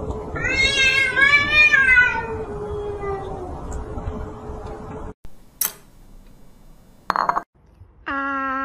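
A cat yowling in a standoff with another cat: one long wavering call that rises and falls, over background noise that cuts off suddenly about five seconds in. A few brief, separate sounds follow near the end.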